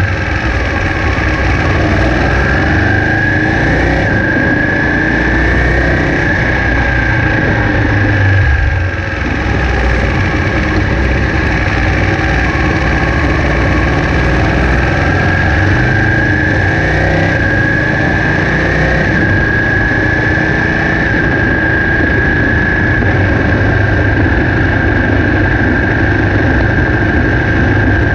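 Ducati 959 Panigale's Superquadro L-twin engine running as the bike is ridden at low speed in second gear, with a steady high whine over it that rises gently a few times. The sound dips briefly about nine seconds in.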